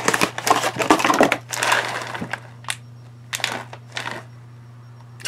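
Plastic pouch of dry cat food crinkling as it is pulled out and handled. There is a dense rustle at first, then a few separate sharp crackles about three to four seconds in.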